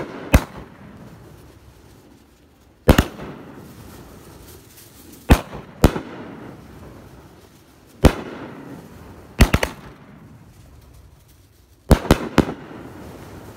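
Consumer fireworks cake firing aerial shells: sharp bangs as the shells break overhead, one to three at a time about every two to three seconds, each trailing off in a rumbling echo.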